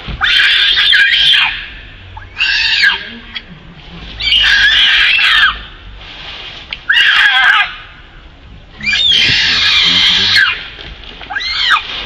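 Southern pig-tailed macaque screaming over and over: six loud, shrill screams about two seconds apart, each arching up and down in pitch.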